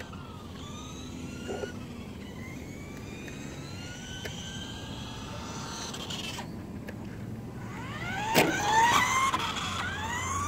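Electric motors of RC cars whining, the pitch rising again and again as they accelerate and falling as they ease off. The whine grows loudest about eight seconds in, with a sharp tick, as a car comes close.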